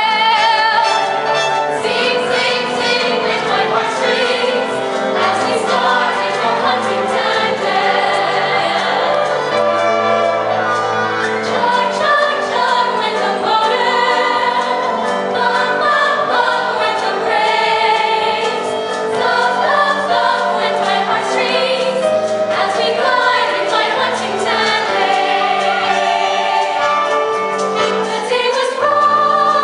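Ensemble cast of a stage musical singing a number together in chorus, over an instrumental accompaniment.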